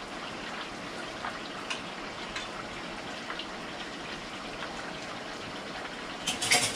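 Fish frying in a hot pan: a steady sizzle with faint scattered crackles. A short clatter of clicks comes near the end.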